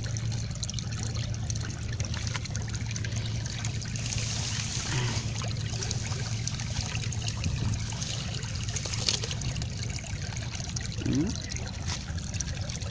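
Water trickling steadily through a slatted bamboo fish trap set in a running channel, with scattered small clicks.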